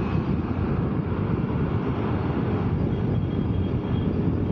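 Steady wind buffeting on the microphone mixed with the engine and road noise of a motorcycle riding along in traffic.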